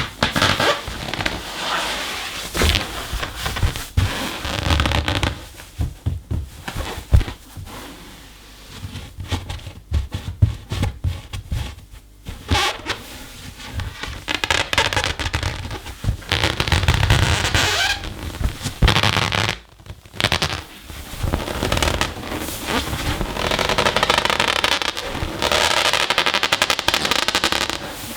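Inflated rubber balloon being rubbed and squeezed by fursuit handpaws with claws, making rubbery squeaks and crackling with many sharp clicks. Longer drawn-out squeaks come about halfway through and again near the end.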